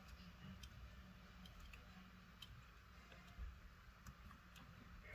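Near silence with a few faint, scattered small ticks and clicks from handling a phone's display flex cable and parts while lining the connector up with its socket, over a low steady hum.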